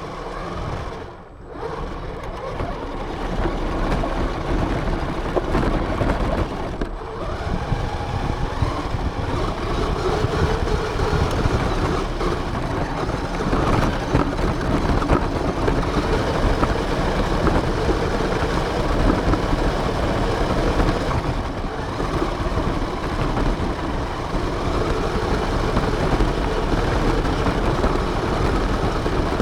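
Radio-controlled car driving, heard from a camera mounted on it: continuous motor and drivetrain noise mixed with rushing wind and ground noise, easing off briefly about a second in and again about seven seconds in, then running steadily.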